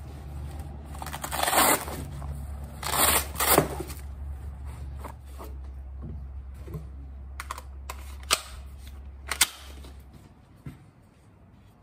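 Gear handling: a magazine pouch is pulled open with two rasping bursts, then come several sharp clicks from the magazine and the Kel Tec Sub 2000 carbine being handled and loaded, over a steady low hum.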